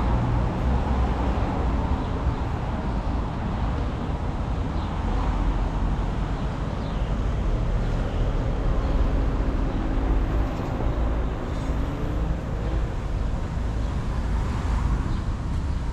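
Steady city street background of traffic rumble, heavy in the low end, with a faint engine hum passing through the middle.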